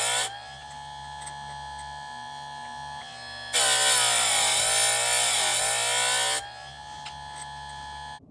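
Electric chainsaw sharpener's grinding wheel working on the chain: a loud grind at the start and again for about three seconds in the middle, the motor's pitch dipping under the load. Between the grinds the wheel spins free with a steady hum, and the motor cuts off near the end.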